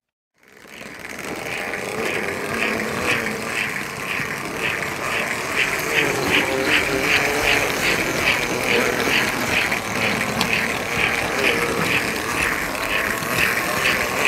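An American Flyer S-gauge toy train running on its track, heard close up from a car being towed behind the Northern steam engine: a steady running rumble with a regular clicking, about two clicks a second, that quickens near the end. The sound fades in over the first couple of seconds.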